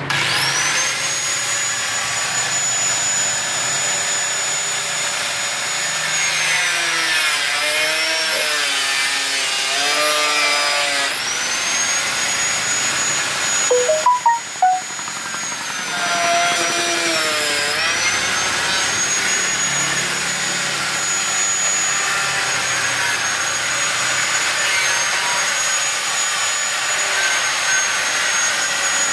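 Handheld angle grinder with a cutting disc spinning up and cutting into the rear fender of a Honda CB150R. Its high whine sags in pitch twice as the disc bites under load and climbs back each time, with a few short knocks about halfway through.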